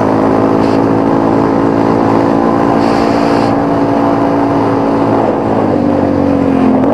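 Quad bike (ATV) engine running at a steady cruise on a dirt track, its pitch easing down slightly about five and a half seconds in.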